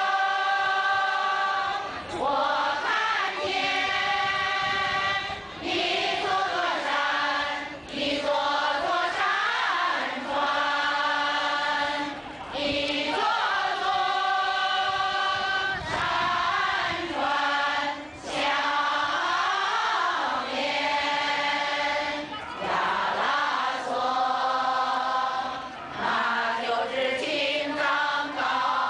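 A group of retirees singing a song together, many voices in phrases of about two seconds with short pauses for breath between them.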